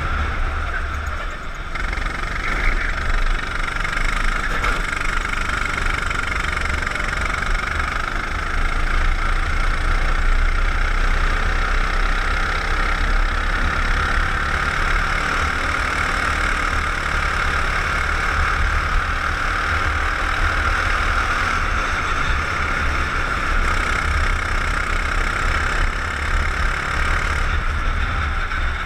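Onboard sound of a go-kart's engine running steadily at speed around the circuit, a constant drone with a low rumble underneath.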